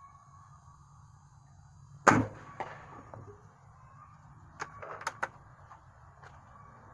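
Air rifle firing one shot about two seconds in: a single sharp crack with a short tail. A few fainter clicks and knocks follow about half a second to three seconds later.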